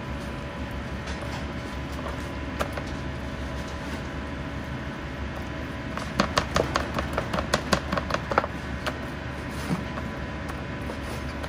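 A Chinese cleaver chopping quickly into raw chicken thigh on a plastic cutting board: about a dozen rapid knocks a little past halfway, with a single knock earlier, over a steady background hum.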